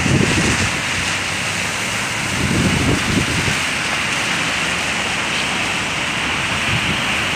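Wind buffeting the microphone in gusts, strongest near the start and again about three seconds in, over a steady wet hiss of traffic driving through floodwater.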